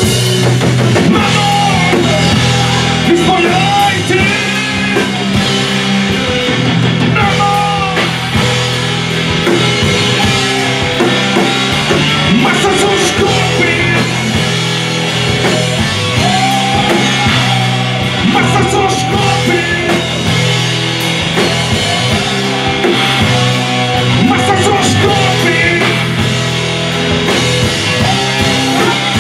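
Rock band playing live at full volume: electric guitars, bass and a drum kit, with the singer's voice over them.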